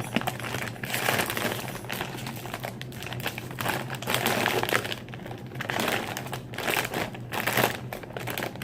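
A plastic cookie bag crinkling in repeated bursts as it is pulled and torn open, splitting along its side.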